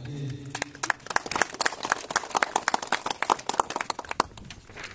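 A small group of people clapping in applause. The claps start about half a second in and stop shortly after four seconds.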